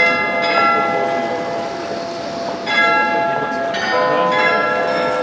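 The carillon bells of the Munich Rathaus-Glockenspiel playing a slow tune: single notes struck one after another and left ringing, with a pause of about two seconds in the middle.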